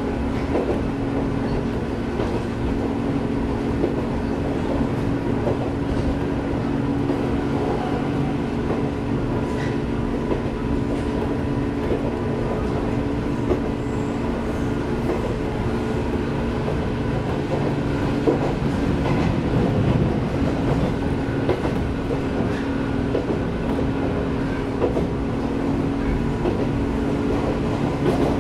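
Inside a Jomo Electric Railway 700 series (ex-Keio 3000 series) resistance-controlled electric car, running between stations: a steady drone of motors, gears and wheels with a hum of several steady tones. Wheels click over rail joints, and the low rumble grows louder for a couple of seconds about two-thirds through.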